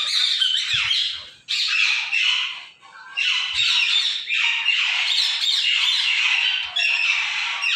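Many parrots squawking and chattering at once, a dense high-pitched din with two short lulls in the first three seconds.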